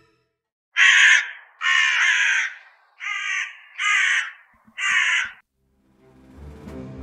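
Crow cawing five times in quick succession, each caw under a second long.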